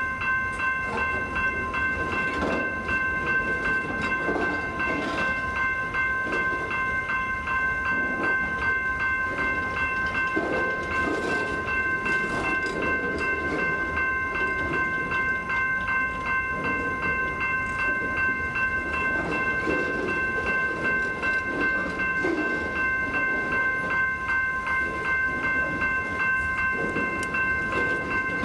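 Amtrak Auto Train auto rack cars rolling slowly past, their wheels knocking and rumbling over the rail joints with scattered clicks. A steady high-pitched squeal sits over the rolling noise and does not change.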